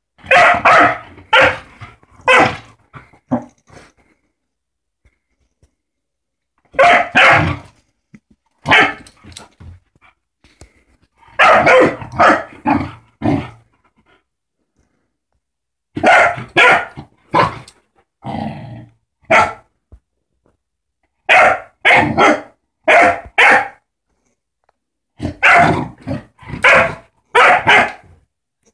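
A puppy barking in play, in bursts of several quick barks with pauses of a few seconds between bursts.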